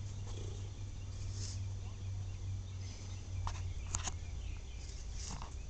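Outdoor background noise: a steady low rumble under a faint hiss, with a few short sharp clicks about three and a half and four seconds in.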